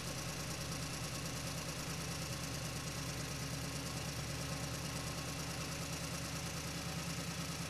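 Engine idling steadily with a low, even, slightly pulsing sound that cuts off abruptly near the end.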